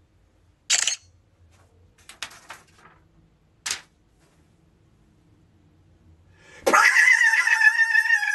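A few soft clicks and rustles, then, near the end, a loud, high-pitched drawn-out vocal cry that falls slightly in pitch.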